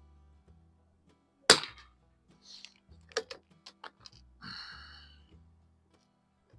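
A single .22 LR shot from an Anschutz Match 54 bolt-action target rifle firing CCI standard velocity ammunition, a sharp crack about a second and a half in. It is followed by a quick series of metallic clicks as the bolt is worked to eject the case and chamber the next round.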